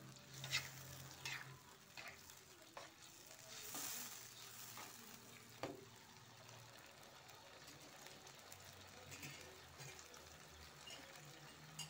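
Faint sizzling of seblak frying in a wok, with a metal spatula stirring and scraping through it and a few sharp clicks of the spatula against the pan, mostly in the first half.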